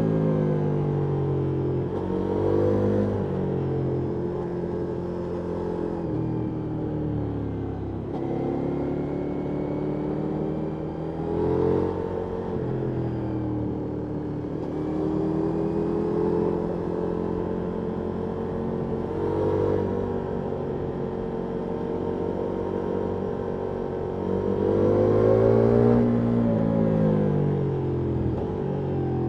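Ducati Multistrada V4S V4 engine through an Akrapovic exhaust, on the move, with the revs climbing and falling again and again as the motorcycle accelerates and eases off. The biggest climbs come about 3, 12, 20 and 26 seconds in.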